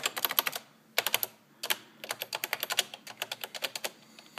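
Keys of a Friden EC 1118 electronic desktop calculator clicking as a long number is keyed in, in several quick runs of presses with short pauses between them.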